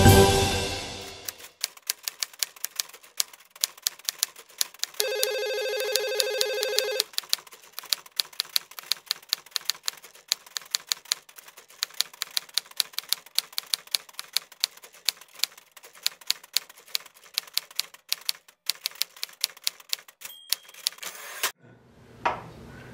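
Title music ends about a second in, then rapid typing clicks run on, broken at about five seconds by a steady electronic buzz lasting about two seconds. A short high ding comes near the end, before the typing stops.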